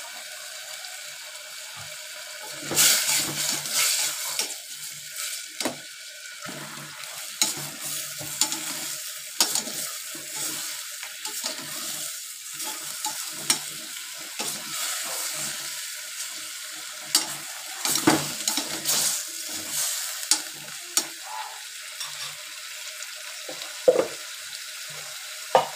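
Spoon stirring and scraping in a stainless steel pot of sautéing chicken and sliced sponge gourd (patola), over a steady sizzle. The irregular scrapes and clatters start about three seconds in and are thickest near the start and again about two-thirds of the way through.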